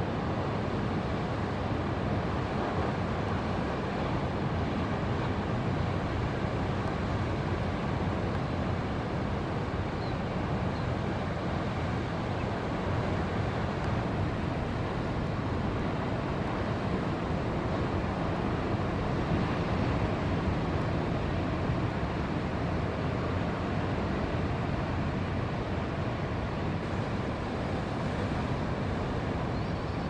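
Steady rushing noise of ocean surf and breaking waves, mixed with wind on the microphone, even in level throughout.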